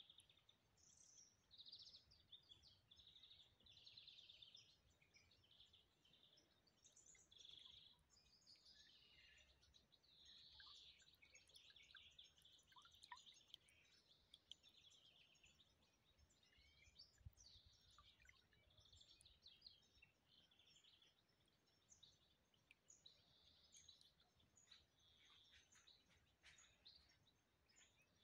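Faint birdsong: short chirps and trills from several small birds, one after another, over otherwise near silence.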